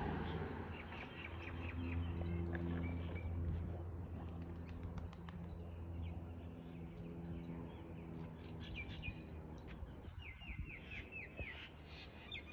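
Small birds chirping in quick runs of short falling notes, a few near the start and more near the end. Under them is a low, steady engine hum that fades out after about eight seconds.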